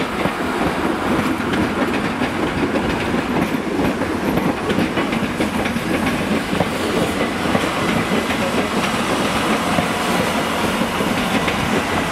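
Class 150 diesel multiple unit passing, its wheels clicking steadily over the rail joints under a continuous running noise. A faint thin high squeal comes in near the end.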